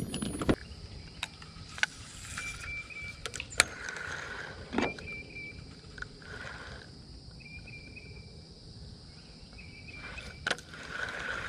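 Quiet outdoor ambience on the water: a short chirping call repeated every two to three seconds over a faint steady high insect-like hum, with a few scattered sharp clicks and knocks.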